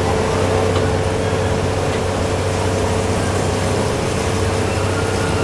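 Amusement-park miniature train's locomotive engine running steadily as the train moves along its track, a constant low hum with a steady higher tone above it.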